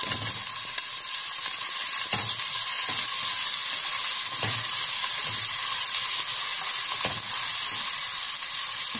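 Diced onion sizzling in hot vegetable oil in a stainless steel pot, with a steady hiss. A spatula scrapes and knocks against the pot now and then as the onion is stirred. The onion is being sweated until it wilts, not browned.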